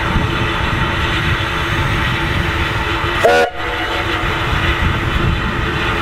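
Narrow-gauge NGG16 Garratt steam locomotive No. 143 moving off slowly with its cylinder drain cocks open: a steady hiss of escaping steam over a low rumble. About halfway through, a short whistle blast sounds and cuts off abruptly.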